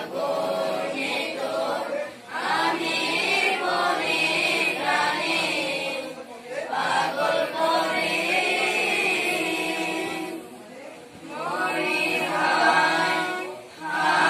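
A group of young students singing together in chorus, in held phrases a few seconds long with short breaks for breath between them.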